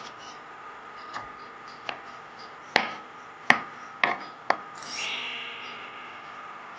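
Knife chopping on a cutting board: about six sharp, unevenly spaced knocks, with a brief hiss about five seconds in.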